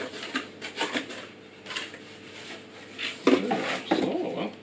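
Cardboard packaging rustling and scraping as a cordless chainsaw is pulled out of its box along with a cardboard insert, louder in the last second or so.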